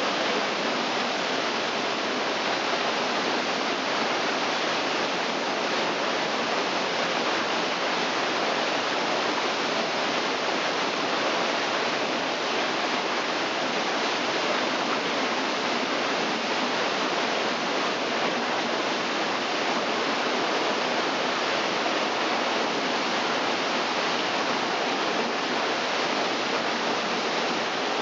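Waterfall cascading down through a narrow rock fissure into churning pools: a steady, even rush of falling water.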